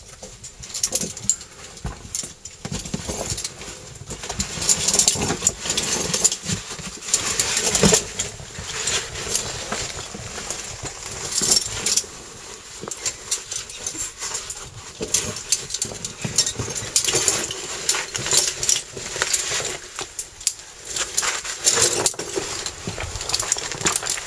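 Caving suit and harness scraping and rustling against rock as a caver squeezes through a tight cave passage, with metal gear such as carabiners clinking now and then. The scrapes and clinks come irregularly throughout.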